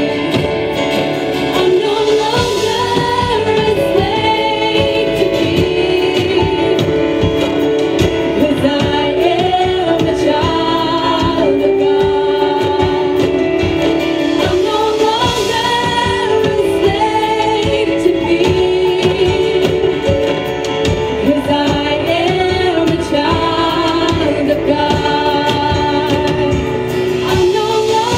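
Women's voices singing a Christian praise-and-worship song over amplified microphones, with acoustic guitar accompaniment; the melody is sustained and continuous.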